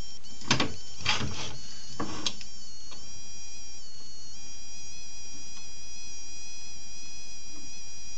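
Several sharp knocks and taps in the first couple of seconds as a wooden blank is seated between the centers of a wood lathe. Under them runs a steady high-pitched electrical whine that shifts its pitch a few times.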